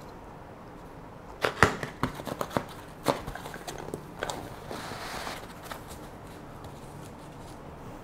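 A cluster of sharp clicks and knocks from handling a camera gimbal and its box, then a short rustling scrape a little past the middle as the foam insert is taken out.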